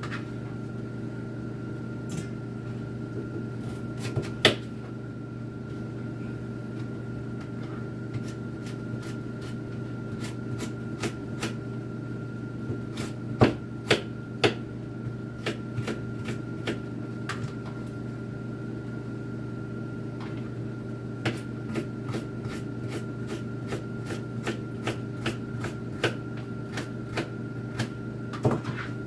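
Knife cutting vegetables on a cutting board: sharp irregular taps, scattered at first, then in runs of a few a second, over a steady hum.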